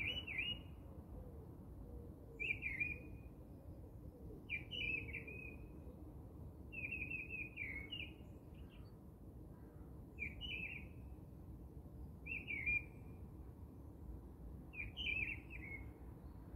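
A bird singing short phrases of quick falling chirps, one every two seconds or so, over a faint low hum.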